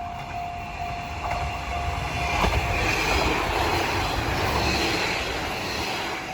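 Railway level-crossing warning bell ringing, about two dings a second, as a train passes over the crossing. The train's wheels and rumble swell up about two and a half seconds in and drown out the bell, with a couple of sharp wheel clacks, then fade so the bell is heard again near the end.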